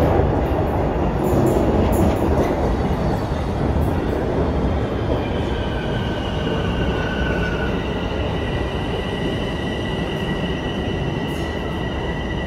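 Bombardier Toronto Rocket subway train pulling into the station, its wheels rumbling over the rails. From about five seconds in, a steady high-pitched squeal joins the rumble as the train slows.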